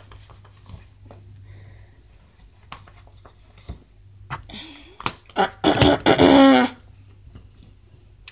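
Stick deodorant rubbed on under a T-shirt: faint fabric rustles and small clicks, then a loud vocal sound lasting about a second, roughly six seconds in.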